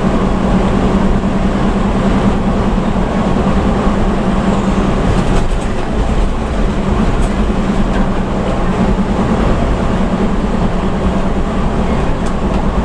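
Steady engine drone and road rumble heard inside a bus cabin at highway speed, the engine note easing briefly about halfway through.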